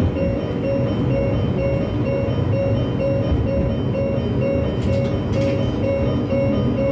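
Diesel railcar running with a low rumble, heard from the driver's cab. Over it a single-pitched beep repeats steadily, about three times a second.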